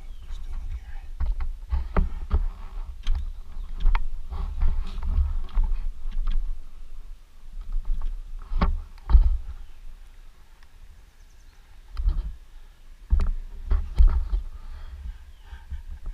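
Uneven low rumbling with scattered knocks and clicks on a helmet-mounted camera's microphone, from wind and handling. No engine is running.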